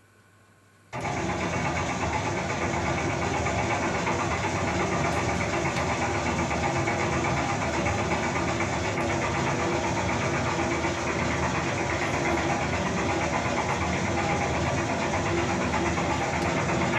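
A steady, machine-like droning noise, played as a sound cue for the dance, cuts in suddenly about a second in after near silence and holds even.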